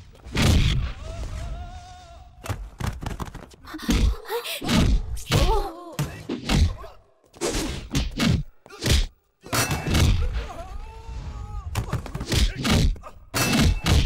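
Film fight sound effects: a rapid run of punch and body-blow impacts and heavy thuds, with men grunting and groaning between the hits.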